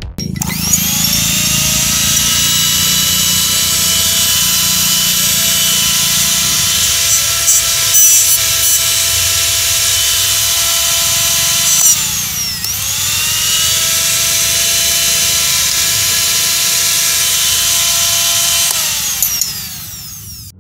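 Cosmos electric blender's motor spinning up to a steady high-pitched whine. About twelve seconds in it slows briefly and speeds straight back up, then winds down near the end.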